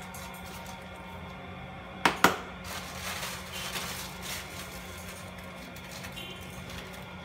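Two sharp knocks close together about two seconds in, then a couple of seconds of plastic bag rustling as powder is shaken out of a plastic bag into a plastic bucket, over a steady low hum.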